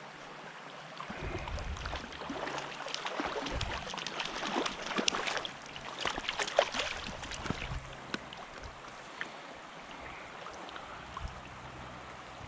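Stream water running, with a run of splashes and knocks over several seconds as a hooked brown trout is brought in and landed. Quieter steady running water near the end.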